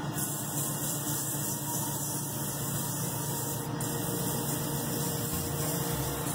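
Laguna Revo 1216 wood lathe running while sandpaper is held against a spinning cherry-wood handle: a steady sanding hiss.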